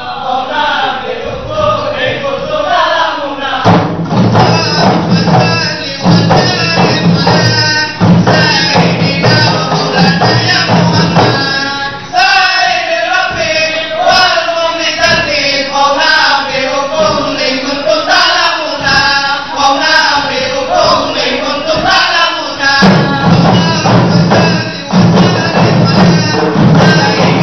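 Male group chant-singing with Acehnese rapa'i frame drums beaten in unison. The drumming comes in strongly about four seconds in, eases off in the middle and is loud again near the end.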